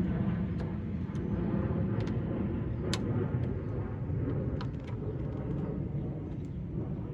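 A T30 Torx bit loosening the screws of a door latch unit, heard as a few scattered faint clicks, the clearest about three seconds in, over a steady low rumble.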